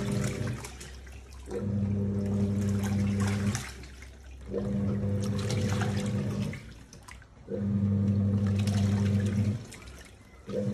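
Washing machine agitating a load in water: its motor hums in bursts of about two seconds, four times, with a pause of about a second between, over sloshing water.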